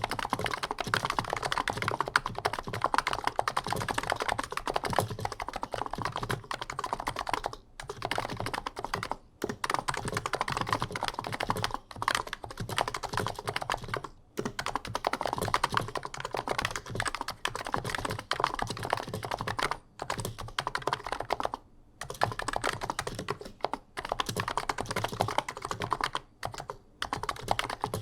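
Fast continuous typing on an Abko Hacker K965P V2 keyboard with Niz electrocapacitive 55g switches, a thocky keystroke sound, pausing briefly now and then. Rattly, springy stabilizer sounds come through, because the stabilizers' factory lube has worn off.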